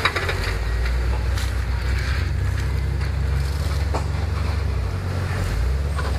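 Jeep Wrangler engine running with a low, steady drone as it crawls through mud on a trail. A few sharp knocks are heard along the way.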